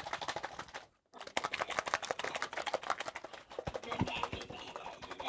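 A small craft bottle being shaken hard, its contents rattling in rapid clicks, cut off by a brief dropout about a second in.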